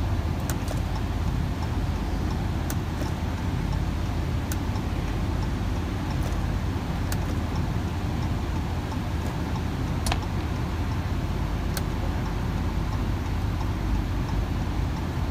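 Steady low hum of a car running, heard inside the cabin, with a turn-signal indicator ticking and a few sharp clicks as the turn-signal stalk is handled.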